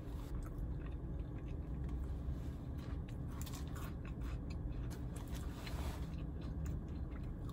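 A person biting into and chewing a crispy fried chicken sandwich, with small irregular crunches of the breading. A steady low rumble runs underneath.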